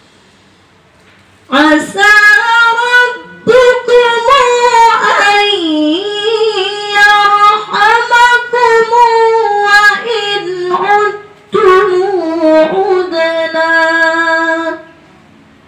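A woman chanting Qur'an recitation in the melodic murattal style into a microphone, in long held phrases that bend and waver in pitch. It starts about one and a half seconds in, breaks twice for breath, and stops just before the end.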